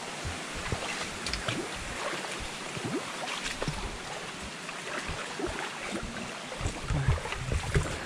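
Feet wading through a shallow forest stream: irregular small splashes over running water, with low rumbles of wind on the microphone.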